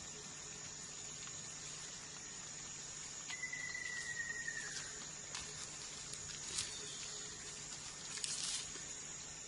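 Faint forest ambience: a steady high-pitched insect drone, with scattered light rustles and snaps of footsteps in dry leaf litter. A thin held whistle sounds for about a second and a half, starting about three seconds in.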